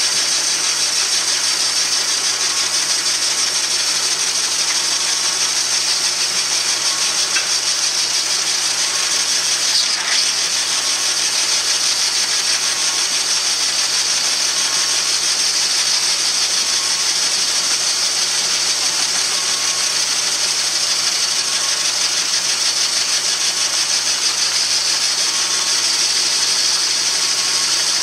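Metal lathe turning a steel shaft with a carbide insert on a heavy cut: the steady hum of the motor and gears under a loud, even, high hiss from the cut, with a faint tick a little over once a second. The lathe's old motor is weak and, by the owner's account, bogging under this cut.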